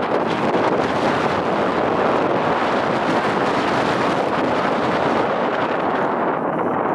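Wind rushing over the microphone, a loud, steady noise with no engine note or other distinct sound standing out.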